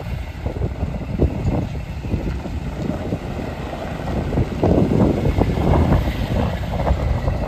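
2009 Ford F-350 pickup driving by on gravel: engine running and tyres crunching over loose gravel, louder about five to six seconds in as the truck passes closest.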